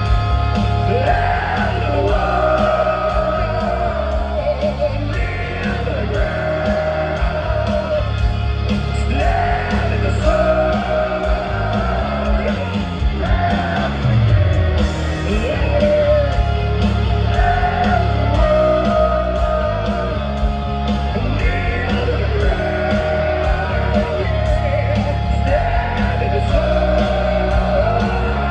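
A heavy metal band playing live through a large PA: distorted electric guitars, bass and drums under long held sung vocal lines, heard from within the crowd in a large venue.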